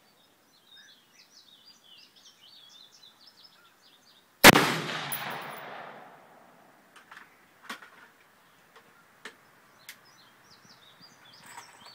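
A single rifle shot from a Colt AR-15 in .223, a sharp crack about four and a half seconds in, with a tail that fades over about a second and a half.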